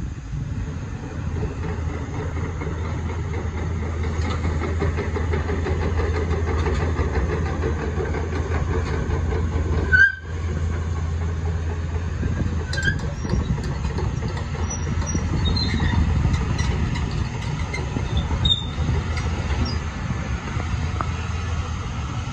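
Hyundai R230L tracked excavator's diesel engine running steadily with a deep hum while the machine swings its upper structure and works its boom and arm. There is a brief sharp click and a short dip in the sound about ten seconds in.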